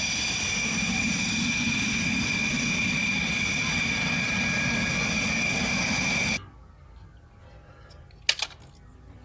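Toy fighter jet's jet-engine sound effect: a steady whine with a high tone, cutting off suddenly about six seconds in. A sharp click follows near the end.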